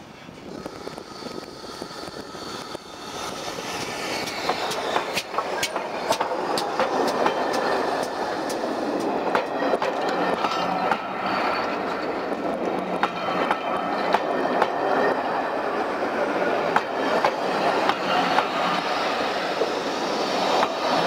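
Steam train headed by GWR Large Prairie tank locomotive 4160 approaching and passing close by. The sound grows over the first few seconds, then the coaches roll past with a steady run of wheel clicks over the rail joints.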